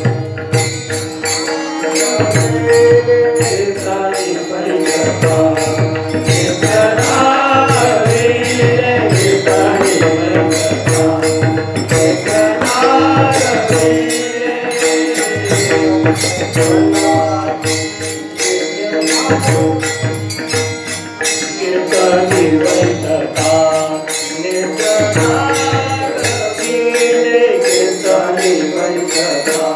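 Kirtan group singing a line of a Marathi devotional abhang together, with a drum and small hand cymbals keeping a steady beat over a held drone.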